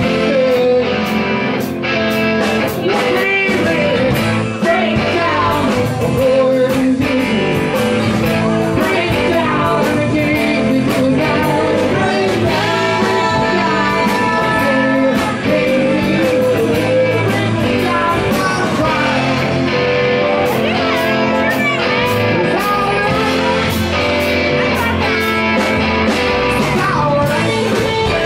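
Live rock band playing: electric and acoustic guitars and drums, with a sung vocal over them.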